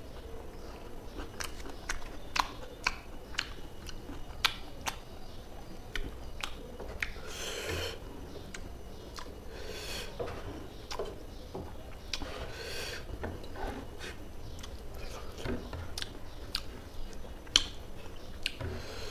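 Close-miked chewing of rice and fish curry eaten by hand, with many sharp wet mouth clicks and smacks. Three longer breathy sounds come around the middle.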